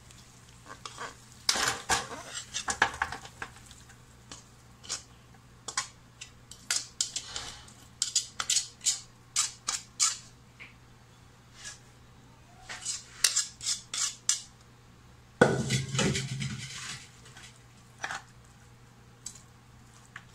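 Metal tongs and a pan clacking against a stainless steel tray as chicken pieces are moved into it: sharp, irregular clinks, with a louder, longer clatter about fifteen seconds in.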